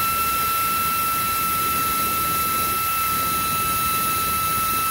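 Small air-powered rotary tool spinning a wire brush at steady full speed, a constant high whine over air hiss, as it scrubs corrosion out of the engine's coolant flange bore.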